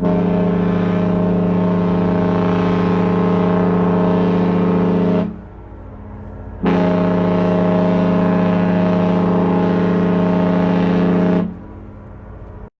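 Cruise ship horn sounding two long blasts of about five seconds each, a second and a half apart, each a steady deep tone rich in overtones.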